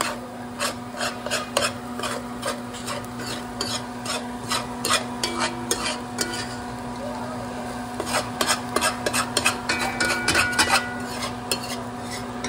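A utensil stirring and scraping in a pan of frying food, with many quick, irregular clicks against the pan over a light sizzle. A steady low hum runs underneath.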